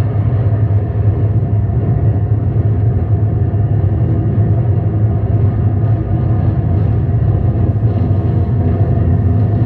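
Electric guitar played through effects pedals, making a loud, dense, steady droning rumble of noise music with several held tones and most of its weight in the low end.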